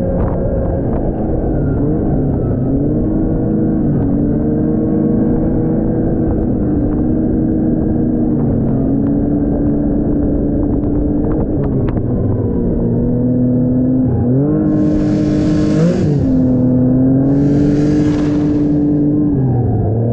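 Arctic Cat snowmobile engine running under way, its pitch dipping and climbing several times as the throttle is eased and opened. Two bursts of hiss come in near the end as snow sprays over the hood and handlebars.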